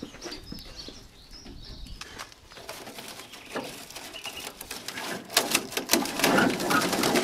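Cut grass and the plastic brush bristles of a Countax powered grass collector being raked and flicked by a gloved hand. The result is a fast run of rustling and bristle-flicking clicks that grows louder over the last couple of seconds.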